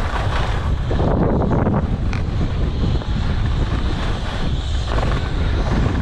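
Wind rushing over the microphone of a skier's body-mounted camera during a fast run, with the scrape and hiss of skis on hard-packed groomed snow.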